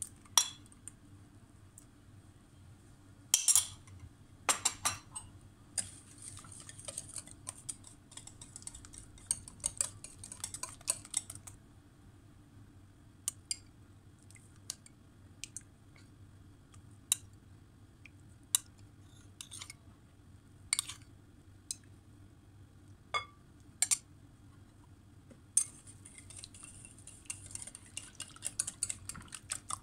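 Metal spoon clinking and scraping against a glass mixing bowl as thin, liquid cake batter is stirred by hand. Scattered single sharp clinks, with two spells of fast, continuous stirring: one a few seconds after the start and one near the end.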